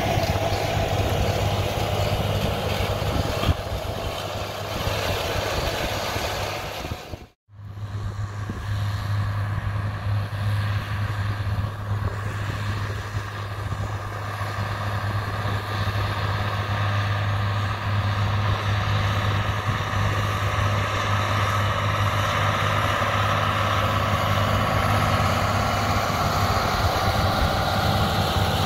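Agco Allis 9785 tractor's diesel engine running steadily under load while pulling a 16-row corn planter, with a low, even hum. The sound breaks off for an instant about seven seconds in, then carries on.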